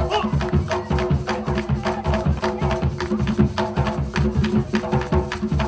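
Mapalé music, an Afro-Colombian drum rhythm: drums and other percussion beating a quick, steady, driving beat, with no singing.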